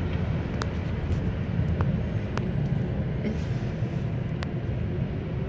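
Steady low rumble of city street ambience with distant traffic, with a few faint clicks spread through it.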